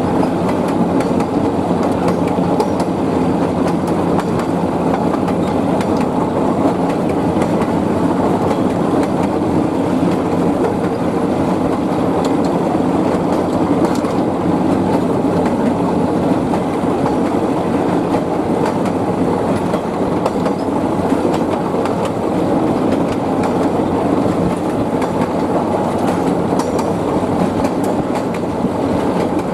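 Narrow-gauge passenger train running along the line, heard from aboard a carriage: a steady rumble of wheels and running gear on the rails, with occasional faint clicks.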